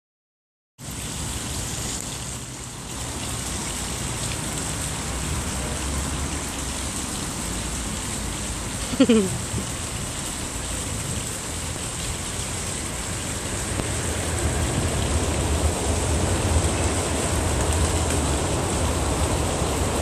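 Steady outdoor rushing noise with a low rumble, with one short falling squeal about nine seconds in.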